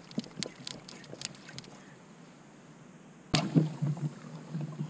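Spinning rod and reel being worked from a kayak: scattered light clicks and ticks, then a sharp snap a little over three seconds in, followed by the low steady whir of the reel being wound in.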